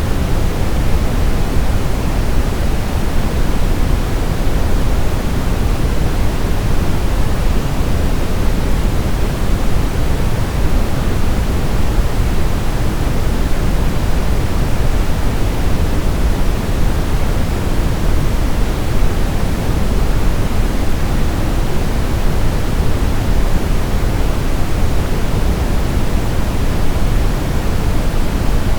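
Steady brown noise: a deep, even rushing hiss, strongest in the bass and falling off toward the treble, with no change or events.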